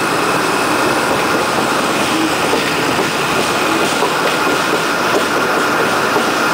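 Narrow-gauge park railway train running, heard from on board an open carriage: a steady rumble and rattle of wheels on rails, with a few faint clicks at rail joints.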